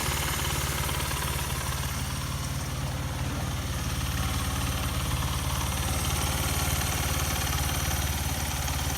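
Honda Ape's single-cylinder four-stroke engine idling steadily, running after a cam chain tensioner adjustment that cured its abnormal engine noise.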